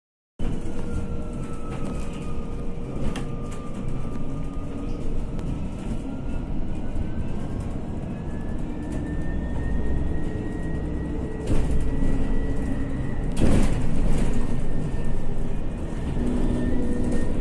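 Cabin sound of a 2017 MAN Lion's City hybrid city bus under way: a steady low rumble with a thin drive whine that dips, then slowly rises in pitch. Sharp rattles and knocks come as the bus jolts over the rough road surface, the loudest about thirteen and a half seconds in.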